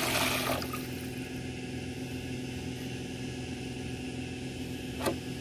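Water being poured into an idli steamer pot, stopping about half a second in. After that a steady low hum carries on, with a single click near the end.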